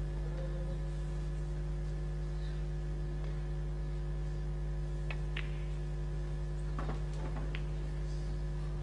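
Steady electrical mains hum on the broadcast audio, with faint clicks of snooker balls: a pair of sharp clicks about five seconds in, as the cue strikes the cue ball and the cue ball hits a red, and two more clicks a couple of seconds later.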